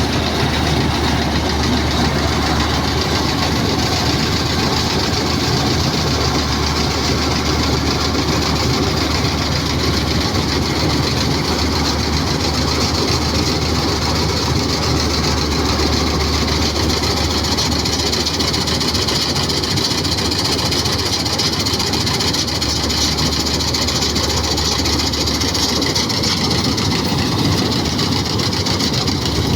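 Combine harvester's diesel engine and machinery running steadily.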